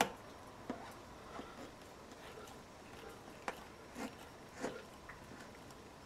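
Hand tools of a tyre plug kit worked in a puncture in a car tyre's tread: a rasp, then a plug insertion tool, scraping and knocking against the rubber in a few irregular short sounds, with a sharp click at the very start.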